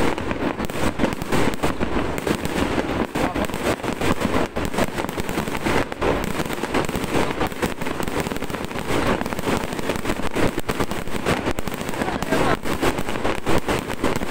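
Fireworks display with shells bursting one after another in a dense, unbroken run of bangs and crackles.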